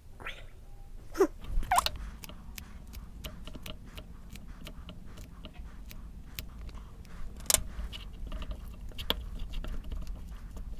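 Wooden spoon and metal fork mixing rice and spring-cabbage kimchi in a ceramic bowl: many quick clicks and scrapes of the utensils against the bowl. A short squeak is heard about a second in, and there is a sharper knock past the middle.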